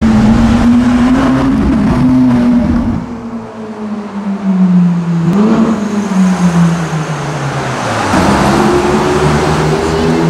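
Ferrari V8 engines revving and accelerating. A short rev blip comes about five seconds in, then the note falls away as the black 458 Italia pulls off. From about eight seconds a second V8, the F430's, comes in, its note rising as it pulls away.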